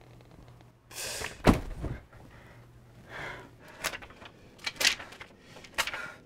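Handling noises: a loud thump about a second and a half in amid rustling, then a string of shorter knocks and rustles, as papers and things are moved about in a cardboard box.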